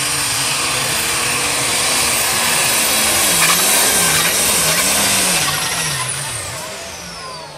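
Modified pulling tractor at full power hauling a weight-transfer sled, very loud, its engine pitch wavering up and down. About six seconds in the power drops off and a high whine falls in pitch as it winds down.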